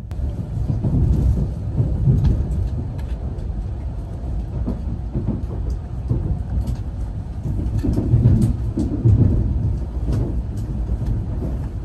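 Nozomi Shinkansen bullet train running, a steady low rumble with faint ticks over it.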